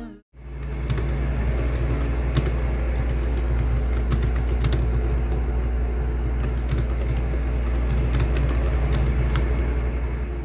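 Fast typing on a compact Bluetooth keyboard with round keycaps: a quick, irregular stream of key clicks over a steady low hum.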